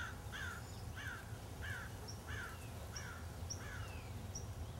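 A bird calling over and over, about two short falling calls a second, stopping about three seconds in, with another bird's short high chirps in between. A low steady rumble lies underneath.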